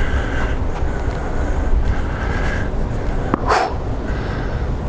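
A single crisp tennis ball strike about three and a half seconds in, over a steady low rumble.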